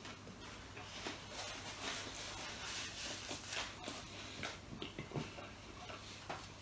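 Close-miked chewing of a mouthful of fries, soft crunching with small wet mouth clicks scattered through.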